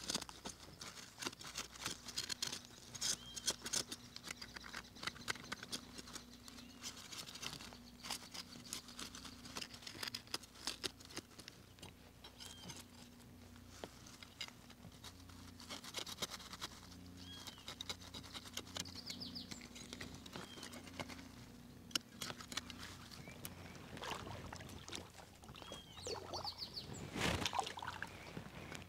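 A knife blade scraping the scales off a fish, in quick irregular scratching strokes.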